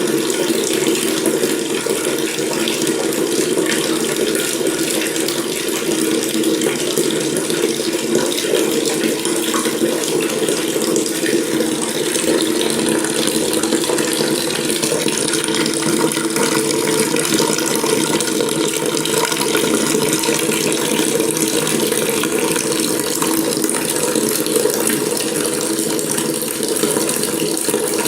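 Water tap running steadily into a sink, a continuous even splashing stream.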